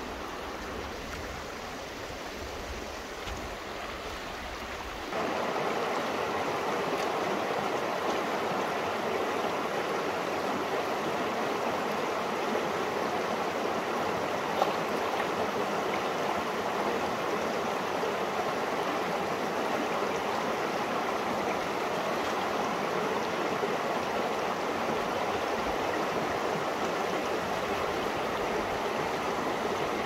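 Shallow mountain river running over stones: a steady rushing of water that becomes louder and fuller about five seconds in.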